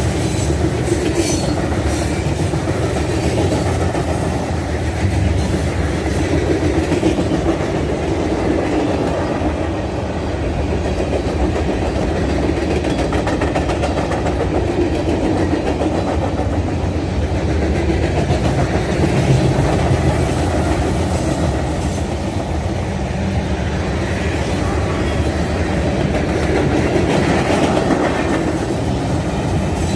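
Freight cars of a Norfolk Southern mixed freight train rolling past at track speed: a steady noise of steel wheels on rail, with the clicking of wheels over rail joints.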